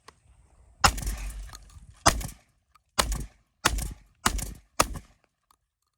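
Six shots from a Benelli M4 12-gauge semi-automatic shotgun, fired one after another and coming faster toward the end.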